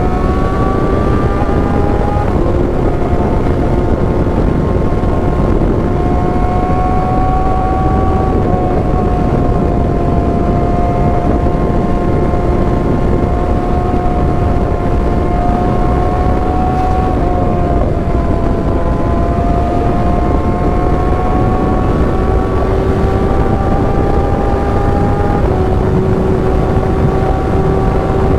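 Kawasaki ZX-6R inline-four engine running steadily while riding on the road, its pitch drifting slowly and stepping a few times, over a heavy low rumble of wind.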